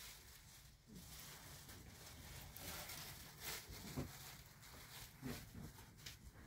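Near silence: quiet room tone with a few faint soft knocks and rustles scattered through it.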